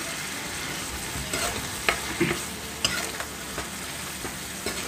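A spatula stirring thick baby corn masala gravy in a pan, mixing in freshly added coconut paste: scattered scrapes and taps against the pan over a steady sizzle from the gravy.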